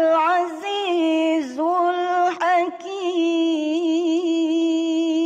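A woman reciting the Quran in melodic tilawah style, singing 'al-'Aziz' with ornamented turns of pitch, then, after a short break, holding one long wavering note at the close of the verse.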